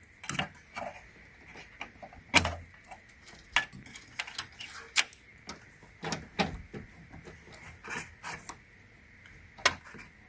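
Irregular sharp clicks and knocks of plastic cable connectors being worked loose and unplugged from a desktop computer's motherboard.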